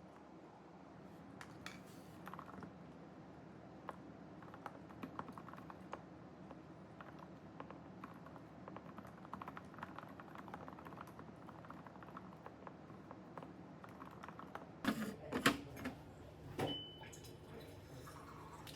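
Typing on a computer keyboard: quick, irregular keystroke clicks. A few louder knocks come near the end.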